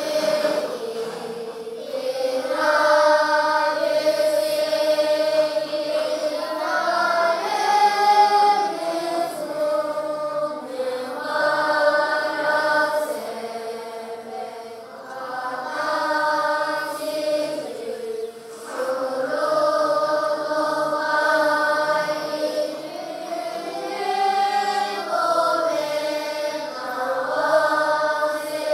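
A group of schoolchildren chanting a prayer together in unison, sung as a slow melody in phrases of a few seconds each.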